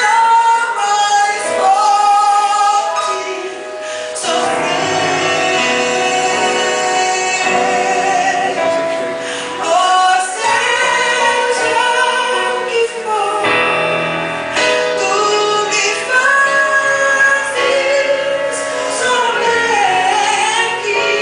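Music: a Christian worship song with a woman singing long, held notes, some with vibrato, over instrumental backing.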